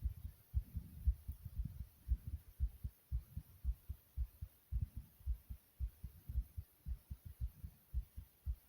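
Fast human heartbeat: low thumps repeating in a quick, steady rhythm.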